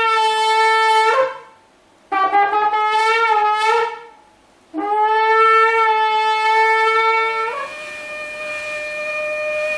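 A long spiral kudu-horn shofar being blown: a short steady blast, then a broken, wavering blast, then a long steady blast. A little past seven seconds in, a higher steady shofar note takes over and holds to the end.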